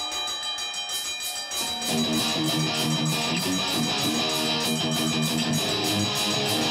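Live rock band playing a song intro: electric guitar over a steady pulsing rhythm. Lower notes come in about two seconds in, and the music grows louder as it builds toward the full band.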